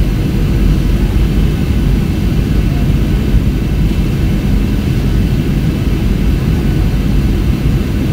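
Steady cabin noise inside a Boeing 737-700 on approach: its CFM56-7B jet engines and the airflow over the fuselage, heard as an even low rumble with a faint steady whine above it.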